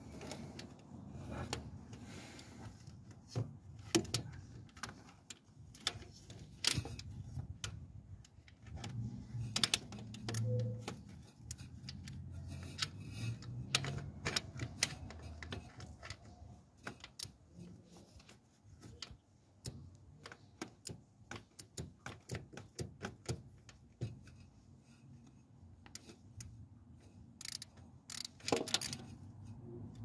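Irregular light clicks and metallic taps of hands and tools working at the starter motor's mounting and wiring in the engine bay, coming in quick clusters that are densest near the end.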